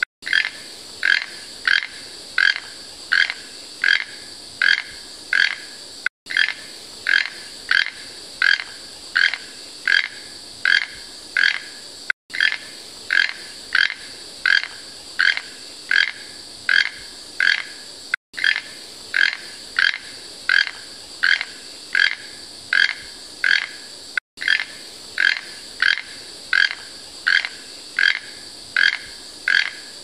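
Toucan giving a long series of short croaking calls, about two a second, over a steady high buzz. The whole sound cuts out briefly about every six seconds.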